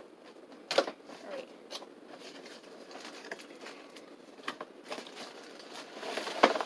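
A cardboard box and its packing being handled and opened by hand: scattered scrapes, taps and rustles, with a sharp one about a second in and a louder cluster near the end.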